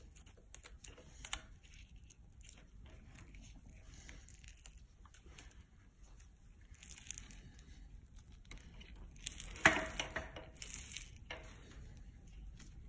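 Faint crinkling, peeling and scraping as a resin-soaked carbon fiber wad is worked out of an aluminum V-trough with a stir stick and gloved hands, with scattered small clicks and a louder rustle about ten seconds in.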